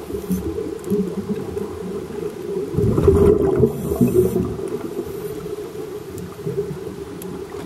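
Muffled underwater sound of scuba divers breathing through regulators: a low rumbling gurgle of exhaled bubbles, swelling into a louder burst of bubbling about three seconds in.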